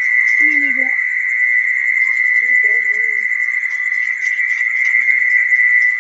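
Mole crickets singing: a loud, steady, high trilling buzz that does not break.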